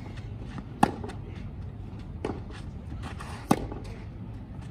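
Tennis balls struck with rackets in a rally on a clay court: two sharp hits from the near player, about a second in and about three and a half seconds in, with fainter hits from the far end of the court between them.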